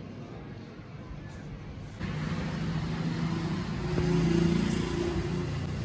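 Road traffic noise with a vehicle engine running as a steady hum, getting louder about two seconds in.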